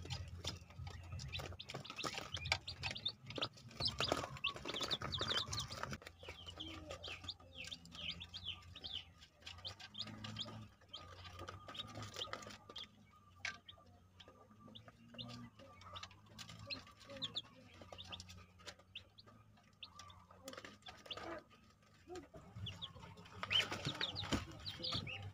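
Newly hatched chicks peeping: many short, high chirps, busiest over the first few seconds and again near the end.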